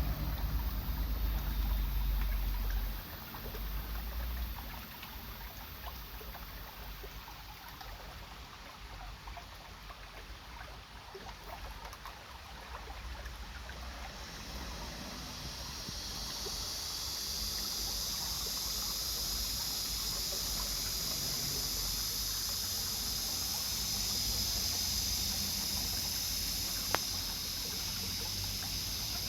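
Water of a landscaped garden's stone stream flowing and trickling over rocks, a steady rushing hiss that grows louder about halfway through. A low rumble in the first few seconds, and a single sharp click near the end.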